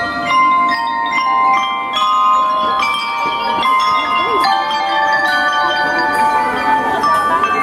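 A section of metal-bar lyres (glockenspiels on stands) struck with mallets, playing a ringing melody whose notes overlap and linger, with no drums under it.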